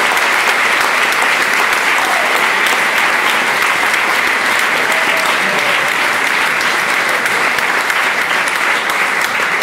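A large seated audience applauding steadily, a dense, even clapping that holds at the same level throughout.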